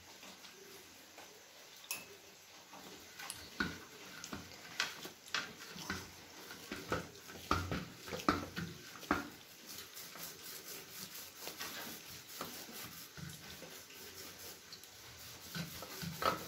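Hands pressing and patting a sticky date-and-nut mixture on a stainless steel plate. Soft irregular pats and light taps against the plate come thickly for the first several seconds, then give way to quieter rubbing as the mixture is spread flat under the palms.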